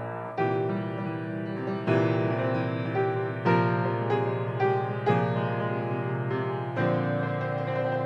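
TOYO A-25 grand piano playing a waltz in E-flat major, with sustained chords and a melody line. A fresh accented chord lands about every second and a half.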